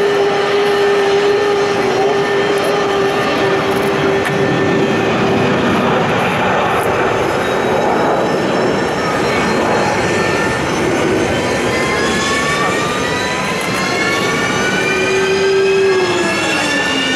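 F-15J fighter jet on engine start: a steady turbine whine and rushing noise, then from about eleven seconds in several whines rising together in pitch as its F100 turbofan spools up.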